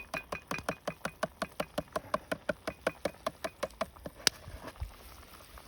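Hand-cranked can opener cutting around a can of stewed tomatoes: an even run of clicks, about six a second, as the crank turns. It stops about four seconds in with one sharper click as the cut is finished.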